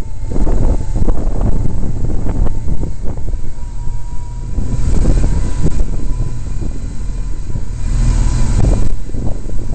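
Motorcycle riding at low speed, heard from a camera on the bike: engine and road rumble with wind buffeting the microphone. The hiss swells briefly about five seconds in and again near the end.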